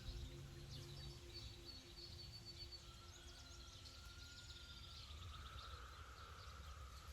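Faint woodland ambience with small birds chirping high and briefly, over a soft sustained background music tone that fades out about a second in.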